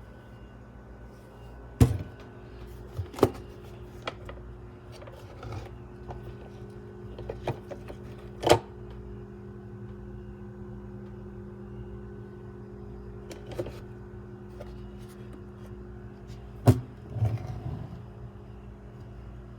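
A steady low mechanical hum, interrupted by a few sharp knocks and clicks, the loudest about two seconds in and near the end.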